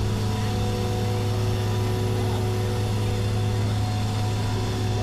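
A machine running at steady speed: a loud, deep hum with several steady higher tones above it, unchanging throughout.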